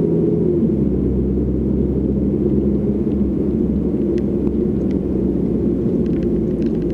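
Steady low rumble with a few faint clicks from about four seconds in.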